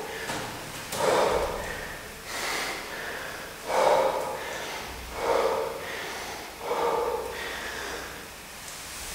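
A man breathing hard in five forceful puffs, about one every one and a half seconds, from the effort of one-legged pistol squats.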